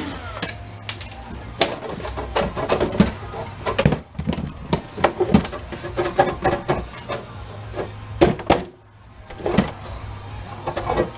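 Irregular clanks, taps and clinks of metal parts being handled and knocked while a machine is dismantled by hand, over a steady low hum.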